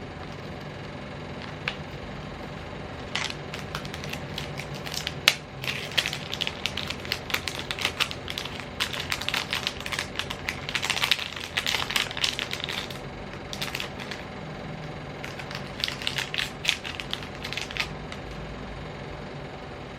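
Hands handling a new laptop and its packaging: quick clicks and crinkles in dense bursts, over a steady low hum.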